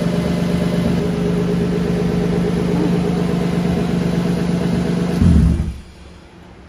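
Freshly built turbocharged BMW M50 inline-six idling steadily, then switched off about five seconds in, giving a brief low shudder as it stops.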